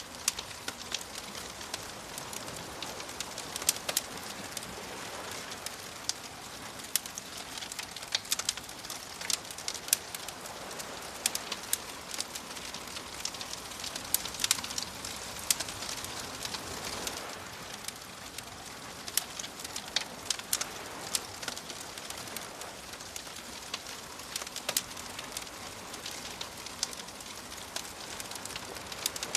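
Wood fire crackling, with frequent sharp snaps and pops, over a soft wash of waves that swells and fades every few seconds.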